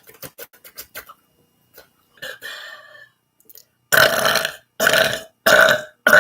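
A person burping loudly four times in quick succession in the second half, each belch about half a second long. Before that come a rapid run of soft clicks in the first second and a couple of quieter sounds.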